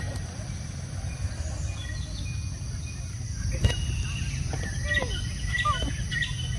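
Rural outdoor ambience: a steady high insect drone over a low background rumble. Short chirps of small birds come in about four seconds in, some of them falling in pitch.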